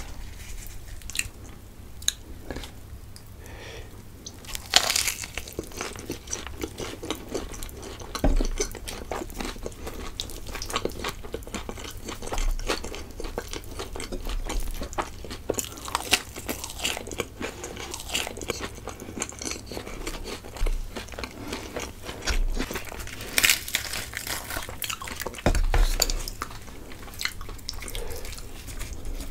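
Close-miked eating of chhole bhature (fried bhatura bread with chickpea curry): biting, crunching and chewing as a steady run of small crackles and clicks, with a few louder bites spread through.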